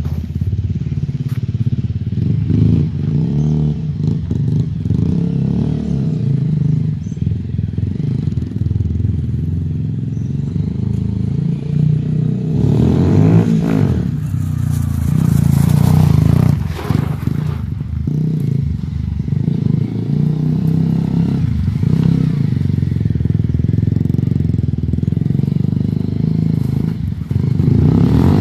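Honda CBR125R's single-cylinder four-stroke engine running at low speed, its pitch rising and falling with the throttle as the bike is ridden around. A rushing noise joins it for a few seconds midway.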